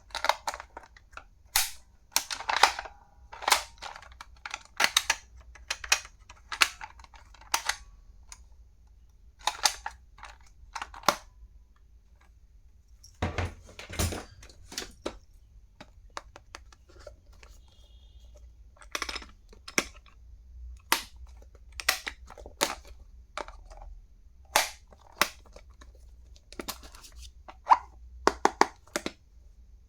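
Stationery items and their packaging being handled and unpacked: a string of sharp, irregular clicks and taps, with a few short pauses.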